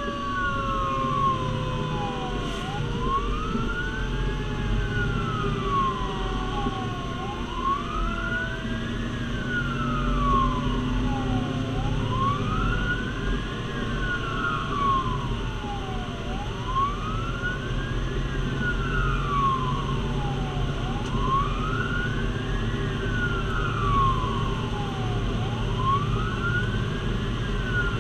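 Fire engine siren on a slow wail: the pitch climbs and falls about every four and a half seconds. A steady engine rumble runs underneath.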